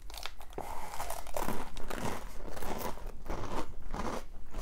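A person biting into and chewing a crispy garlic-and-parsley bruschetta bite, a light garlic-bread snack: a run of irregular dry crunches.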